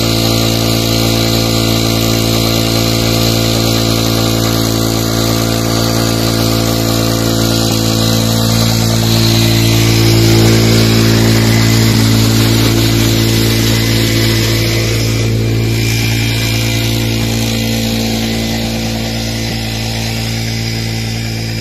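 Honda CD 70 motorcycle's single-cylinder four-stroke engine running at a steady speed, belt-driving a tubewell pump, with water gushing from the outlet pipe; the water is loudest about halfway through and the sound gets a little quieter near the end.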